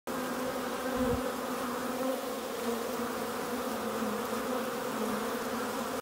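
Honeybees buzzing steadily at a hive entrance, a dense, even hum of many wings.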